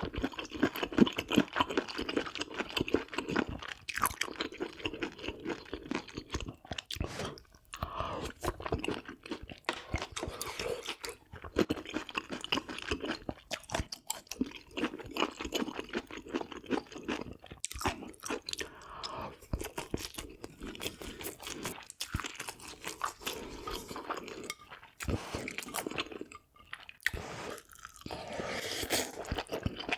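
A person chewing food close to the microphone, with many small, irregular crunches.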